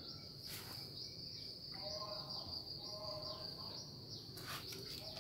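Faint, steady, high-pitched trill of an insect in the background, with a couple of light clicks from the muffler parts being handled on the brush cutter engine, about half a second in and near the end.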